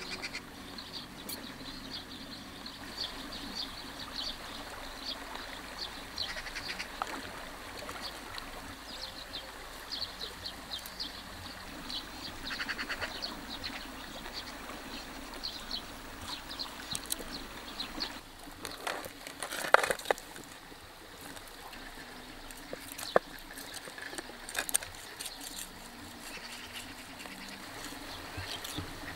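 Birds chirping over the steady rush of a river, with a few sharp clicks and knocks in the second half, the loudest about two-thirds of the way through.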